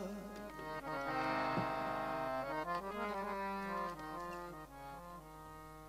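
Harmonium playing a short melodic interlude between sung lines of a Sikh shabad kirtan, its notes held and stepping in pitch, with a few light drum strokes; it dies down toward the end.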